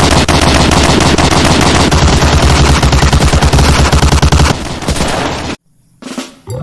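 Rapid, continuous machine-gun fire sound, loud and dense, stopping about four and a half seconds in. A fainter stretch follows, then a brief moment of silence.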